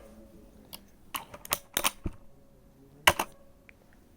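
Plastic clicks and knocks from tugging at the space bar keycap of a Redragon mechanical keyboard, a handful of separate sharp clicks with a sharp double click about three seconds in. The keycap is stuck and will not come off.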